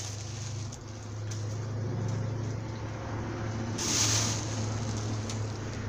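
An electric motor-driven machine running with a steady hum, with a brief hissy surge about four seconds in.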